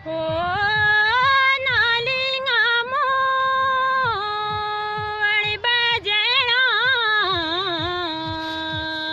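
A solo voice singing a Pahadi folk melody, with ornamented, wavering notes and a long held note near the end, over steady low drum strokes.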